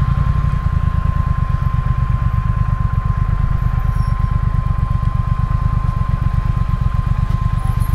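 Triumph Speed Twin's parallel-twin engine idling with a steady, quickly pulsing low rumble, along with a thin steady high tone.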